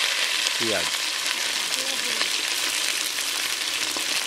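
Sliced onions sizzling in hot oil in a metal pot: a steady frying hiss.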